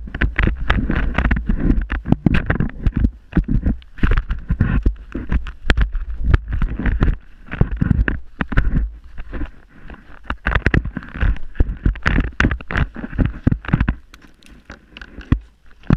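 GoPro's own microphone on a skier floundering in deep powder snow: an irregular run of rustling, crunching and knocks as skis, body and camera move through the snow, with wind rumbling on the microphone.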